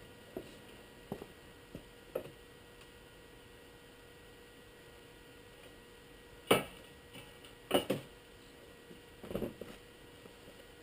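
Scattered light clicks and knocks of tools and metal parts being handled, with three louder sharp knocks in the second half, over a steady electrical hum.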